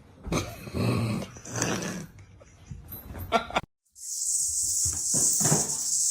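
A dog vocalizing for about two seconds. It is followed by a cut to another clip that carries a steady high hiss.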